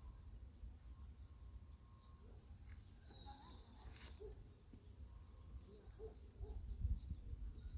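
Faint outdoor ambience of scattered short bird chirps over a low rumble. The rumble grows louder near the end, with a couple of brief rustles in the middle.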